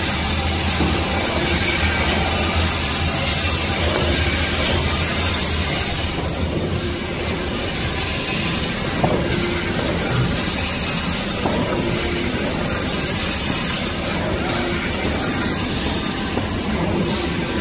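Automatic band-saw log cutter for toilet-paper rolls running: a loud, steady mechanical noise with a strong hiss, the high hiss dipping and returning about every two and a half seconds.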